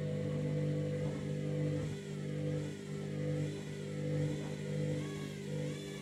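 Candy front-loading washing machine's drum motor running during a spin attempt with an unbalanced load. There is a steady hum, and from about two seconds in a higher whine that wavers up and down in pitch roughly once a second, as the drum speed rises and falls without settling into full spin.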